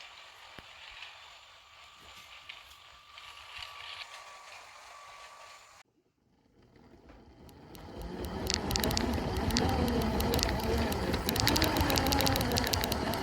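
Motorized Lego train running on plastic track: a faint steady motor whine with scattered clicks, then, after a sudden cut about six seconds in, a dense rapid clicking and rattling that grows loud over about two seconds as the train runs close by.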